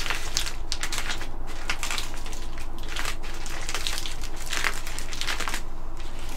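Plastic bubble wrap crinkling as hands press and rub it flat onto tissue paper, an irregular crackly rustle that dies away about five and a half seconds in.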